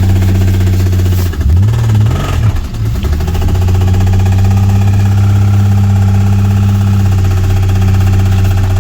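Car engine idling loudly with a deep, steady note, blipped up in revs twice in quick succession about a second and a half in, then settling back to idle.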